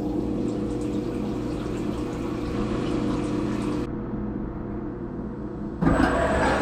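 Syil X7 CNC vertical mill running an adaptive clearing cut: a steady machining tone over a wash of coolant. Near the end the sound changes abruptly and gets louder.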